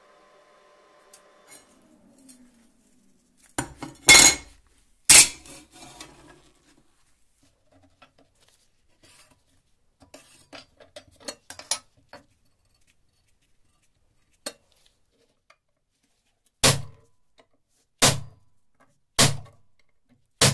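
Metal tools and pieces clattering and clinking on a steel workbench, with small handling clicks in the middle. Near the end come three sharp metallic strikes about a second and a half apart, each with a short ring: a hammer driving a centre punch into a steel plate to mark hole positions.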